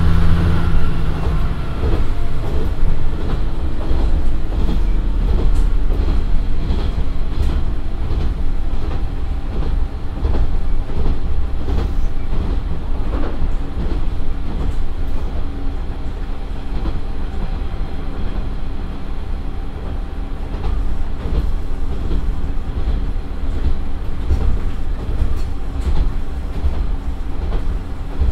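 Interior running sound of a Nagara 3-series diesel railcar with a Nissan Diesel PF6HT03 engine. The strong engine note drops away about a second in, and the car coasts on with steady wheel-and-rail rumble and frequent clicks of the wheels over short rail joints as it slows from about 65 to 55 km/h.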